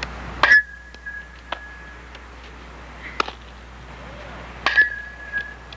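Metal softball bat striking a ball twice, about four seconds apart, each hit a sharp ping that rings on for about a second, with a few fainter knocks in between.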